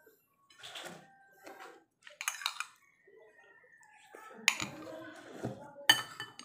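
Metal spoon clinking and scraping against a plate of rice as it scoops: scattered sharp clinks, a quick cluster about two seconds in and the loudest near the end, with softer scraping between.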